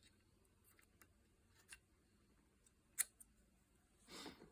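Small clicks of Glock 36 slide parts as the striker assembly is handled and fitted into the slide: a few faint ticks, one sharp click about three seconds in, then a brief scraping rustle near the end.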